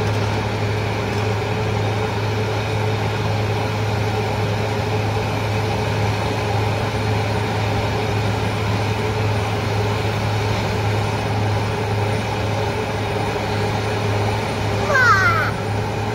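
Engines of road paving machinery running in a steady low drone. A brief high rising call cuts in near the end.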